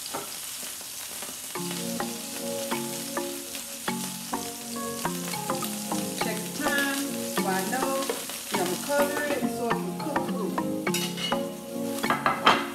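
Swordfish steaks sizzling in hot oil in a skillet, a steady frying hiss. Background music with changing notes comes in about a second and a half in, and a few clicks near the end.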